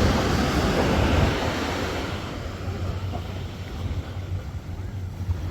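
Ocean surf washing onto the beach with wind buffeting the microphone; the wash of the wave swells over the first second or so and fades after about two seconds, leaving a low wind rumble.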